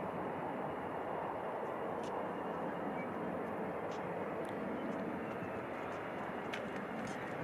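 Steady engine noise of a landing jet airliner, holding an even level throughout, with a few faint ticks over it.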